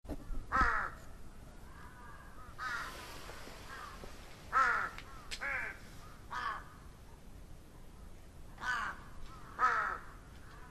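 A series of about seven harsh cawing calls, each dropping in pitch, spaced one to two seconds apart.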